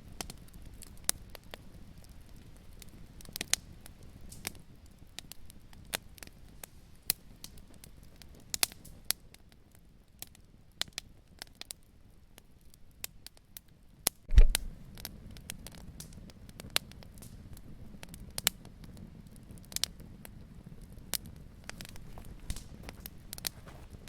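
Wood fire in a fireplace crackling, with sharp irregular pops over a soft low rumble of flame. A single louder, deeper thump comes a little past halfway.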